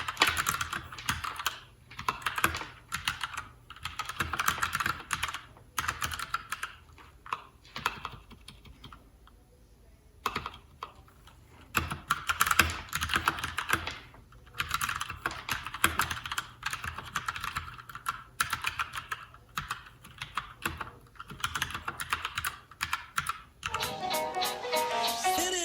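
Typing on a Keychron K4 mechanical keyboard with Gateron Brown tactile switches, plastic frame and ABS keycaps: rapid key clacks in runs with short pauses. Music comes in near the end.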